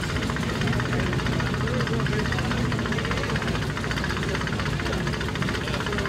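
A historic race car's engine running steadily at low revs, with a fast, even firing beat.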